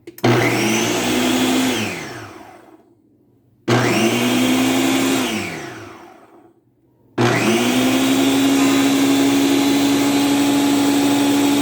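Ninja countertop blender motor, run with soapy water inside for cleaning. It is pulsed twice: each time it whirs up with a rising whine, runs briefly, then spins down with a falling whine. About seven seconds in it starts a third time and runs steadily.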